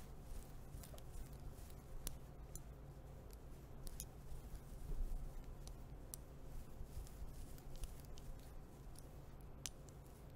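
Metal nail rings scratching and clicking through a dog's short fur close to the microphone: irregular small clicks and rustles, over a low steady hum.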